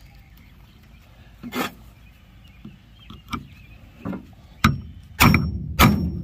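Hammer blows on a steel grommet-setting tool, driving a half-inch metal grommet through a carpet step mat: about six sharp knocks spaced roughly a second apart, the last three the loudest.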